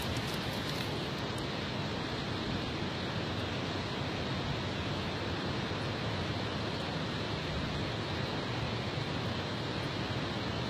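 A steady, even rushing noise at a constant level, with no separate events in it.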